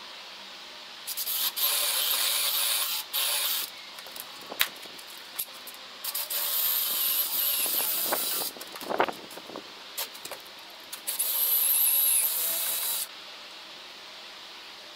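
Aerosol spray can hissing in three long bursts of about two seconds each, with a sharp knock between the first two bursts and a few knocks between the second and third.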